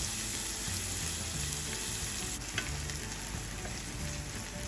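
Chopped onions sizzling in hot oil in a frying pan while being stirred with a wooden spatula, with a couple of light clicks from the spatula about two and a half seconds in.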